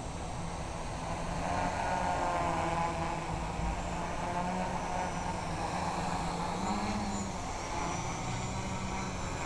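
Honey Badger prototype quadcopter flying, its electric motors and propellers whining with a pitch that wavers up and down as the throttle changes. It grows louder about a second and a half in.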